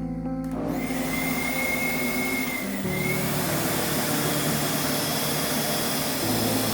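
Vacuum cleaner switched on about half a second in, its motor spinning up to a steady rushing run with a high whine at first, over background guitar music.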